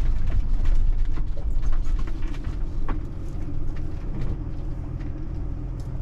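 Inside the cab of a Hymer MLT 580 4x4 camper van on a Mercedes Sprinter base, driving slowly over sand: a low engine and road rumble with scattered small knocks and rattles. The rumble gets quieter about halfway through as the van eases off to stop.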